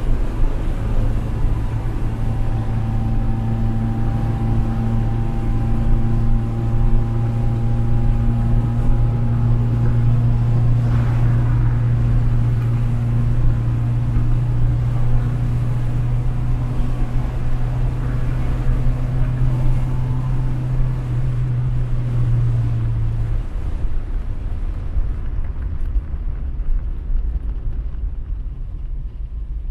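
Skoda car driving with its engine held at a steady speed over a continuous low road rumble. The engine note drops away about 23 seconds in, leaving the rumble.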